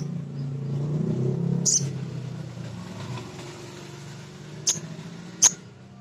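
Male little spiderhunter (sogon) giving three short, sharp single calls, spaced out over a few seconds. Under them runs a low engine-like rumble that slowly fades away.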